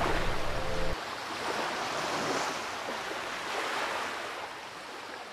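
Music stops about a second in, leaving surf washing on a shore in slow swells that gradually fade.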